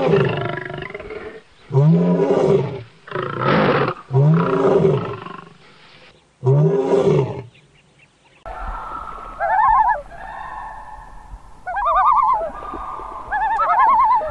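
Male lion roaring: a series of about five deep calls, each about a second long, rising and falling in pitch. Past the middle the sound cuts to a common loon giving three or four high, rapidly wavering calls over a low hum.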